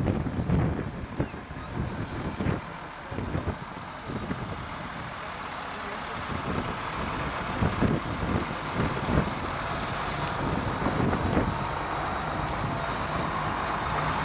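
WWII US Army six-wheel-drive heavy wrecker truck's engine running as the truck drives slowly up a rough grass track, growing louder as it comes close and passes, with a short air-brake hiss about ten seconds in.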